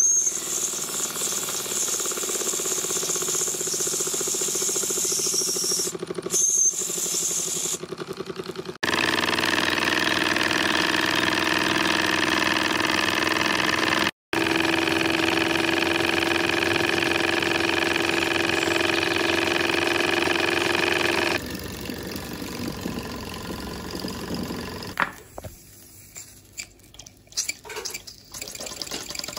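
Mamod toy steam engines in steam. First comes a high steam hiss over a fast rhythmic beat from a Mamod TE1A traction engine. About nine seconds in, a steady pitched tone starts and holds for about twelve seconds. After it, the TE1A's small engine runs more quietly, with irregular clicks.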